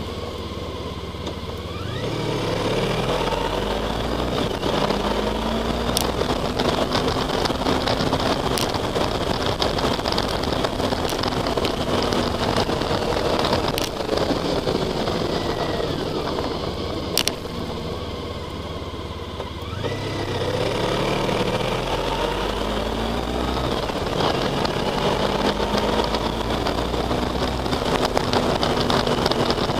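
Honda ST1300 Pan-European's V4 engine running under way, picking up speed through the gears twice: the pitch climbs in steps about two seconds in and again about twenty seconds in, after quieter stretches off the throttle. Wind and road noise run steadily under the engine.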